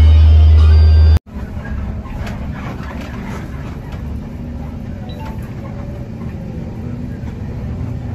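Background music with a heavy bass line for about the first second, cutting off abruptly. Then the bus's engine runs with a steady low rumble, heard from inside the driver's cab.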